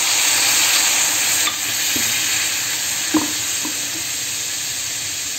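Water sizzling and hissing in a hot pan where it has just been poured onto powdered jaggery, the hiss slowly easing off as the pan cools. A couple of light knocks come about two and three seconds in.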